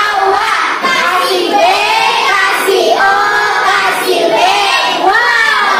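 A class of young children singing a short classroom action song together, loud and without a break.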